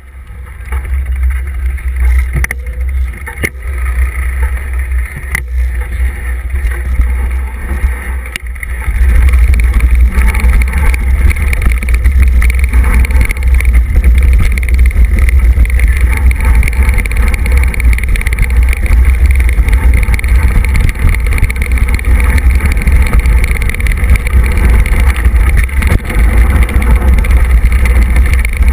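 Wind and ride noise on a handlebar-mounted camera's microphone as a mountain bike rides downhill, with occasional knocks from the bike over bumps. About nine seconds in the rumble gets louder and stays loud as the bike runs fast down a rough dirt trail.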